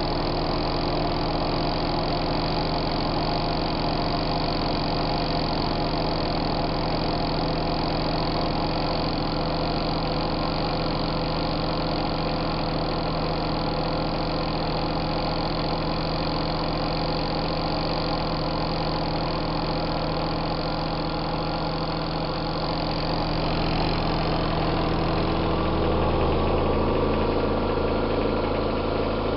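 Compact twin-tub washing machine running with a steady motor hum and rattle; near the end the hum shifts in pitch and grows a little louder.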